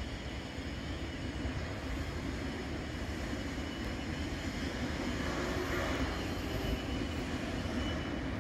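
Diesel locomotive hauling a freight train as it approaches, heard as a steady low engine drone that grows slightly louder.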